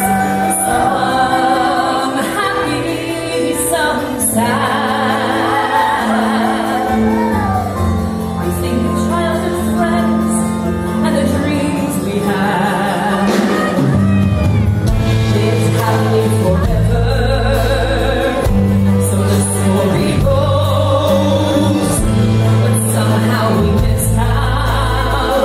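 Live band music with singing, loud and continuous: electric bass, keyboards and drums under the vocals. A heavier bass part comes in about halfway through.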